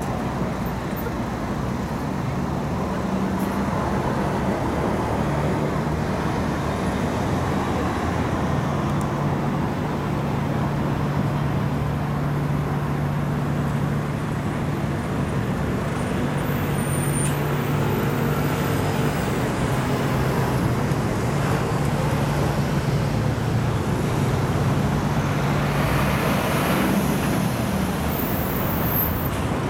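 Steady road traffic: cars, vans and trucks driving past, their engines and tyres making a continuous drone with a low hum.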